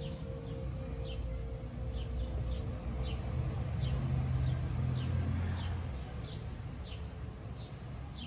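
A small bird chirping again and again: short, high, falling chirps about once or twice a second. Under it a low rumble of background noise swells in the middle and is the loudest sound.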